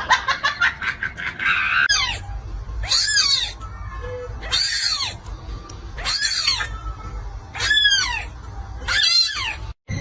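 Young kitten mewing: about six high, repeated cries roughly a second and a half apart.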